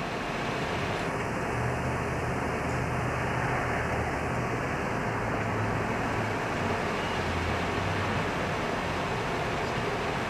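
Steady background hiss inside a room, with a low droning hum that wavers in pitch and fades out about eight seconds in.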